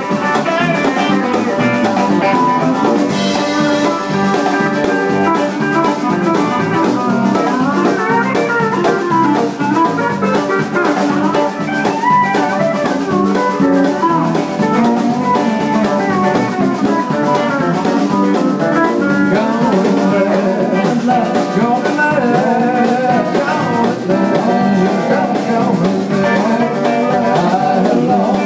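Live band playing an instrumental passage: electric guitar lead over a drum kit, with the pitch of the lead line bending up and down.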